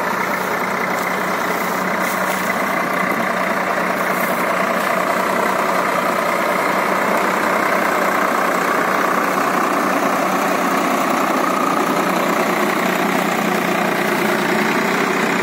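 Swaraj 744 FE and New Holland 3230 tractors' three-cylinder diesel engines running steadily close by.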